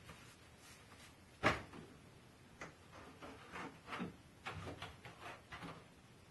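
Thin, freshly vacuum-formed PETG plastic sheet being lifted off the forming frame and handled: a loud snap about one and a half seconds in, then a run of irregular crackles and pops as the sheet flexes.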